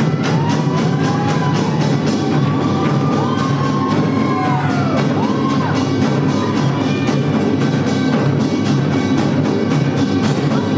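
Samulnori percussion ensemble of kkwaenggwari small gongs, janggu hourglass drums and buk barrel drums playing a fast, driving beat. Drawn-out rising-and-falling whoops ride over it.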